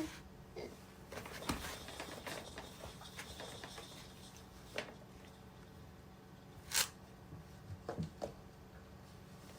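Faint rustling and handling noise with scattered small clicks and taps, the sharpest a few seconds apart, the loudest a little past the middle.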